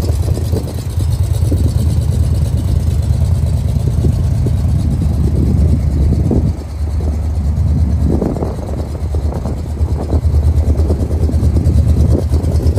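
Big-block V8 of a 1979 Ford pickup idling, heard as a steady low exhaust rumble. Toward the end the rumble pulses in a quick even rhythm.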